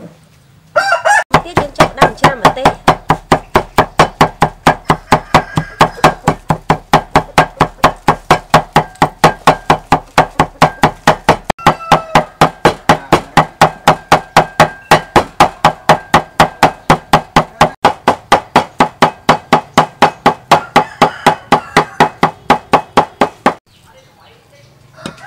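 Steel cleaver chopping dried red chillies on a wooden chopping block: fast, even strokes at about three to four a second. The chopping starts about a second in, pauses briefly near the middle, and stops about two seconds before the end.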